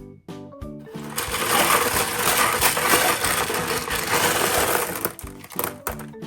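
Background music with a steady beat, joined about a second in by a loud whirring noise like a small motor, which stops shortly before the end.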